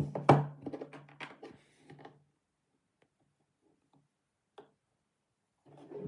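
3D-printed plastic parts being handled: a cluster of small clicks and knocks as a tight-fitting printed tray is worked in its slot in the toolbox, then near silence broken by a single click, with faint handling sounds returning near the end.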